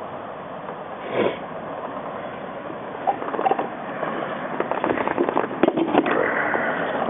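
Irregular clicking and rattling of metal and plastic parts and tools being handled in a car's engine bay, with a brief scrape or swish about a second in.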